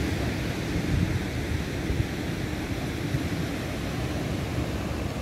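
Steady rushing noise of ocean surf, with wind buffeting the microphone as a low rumble.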